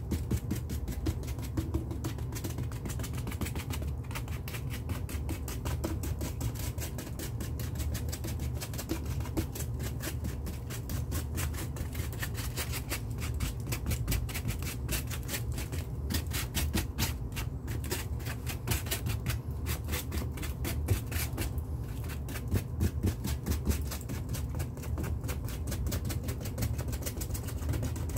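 Rapid, continuous tapping of a crumpled wad dabbing acrylic paint onto a stretched canvas, over a steady low hum.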